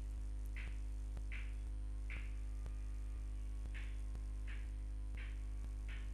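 Steady electrical mains hum with a buzz, the recording's background noise. Faint soft puffs repeat about every three quarters of a second over it.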